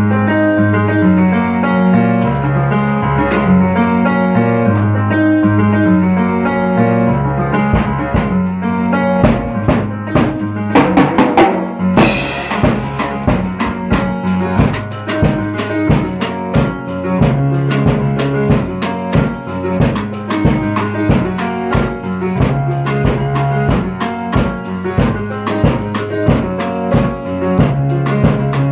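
Instrumental music: keyboard and bass chords, then a run of drum hits from about nine seconds in, after which a drum kit joins with a steady beat for the rest.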